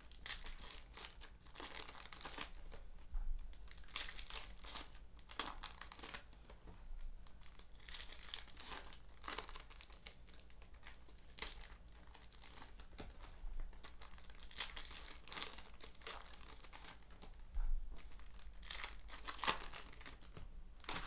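Foil trading-card pack wrappers crinkling and tearing as they are opened by hand, in irregular bursts.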